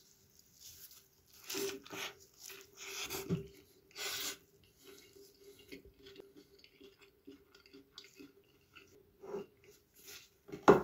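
Black plastic gloves crinkling as hands handle and press crisp toasted sandwich pieces on a plate, with crunchy rustles in irregular bursts over a faint steady hum.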